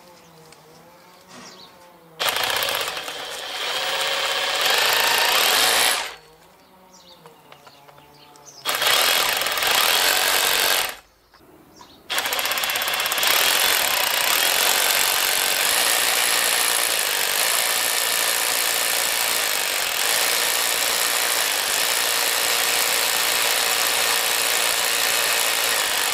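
Cordless brushless SDS-Plus hammer drill running for Makita 18V batteries, hammer-drilling a hole. It runs three times: once from about two seconds in, picking up speed partway through, briefly again around nine seconds, then in one long continuous run from about twelve seconds in.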